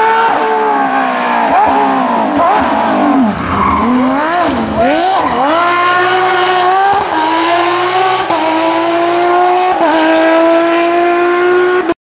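Porsche 911 rally car's flat-six engine at full throttle as it approaches, then falling in pitch with quick throttle blips through the downshifts for a bend, then climbing again through several upshifts as it accelerates away. The sound cuts off suddenly near the end.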